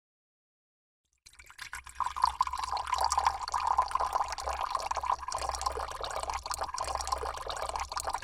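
Liquid pouring, a dense stream of tiny splashes and drips that starts about a second in and runs steadily for about seven seconds, then cuts off.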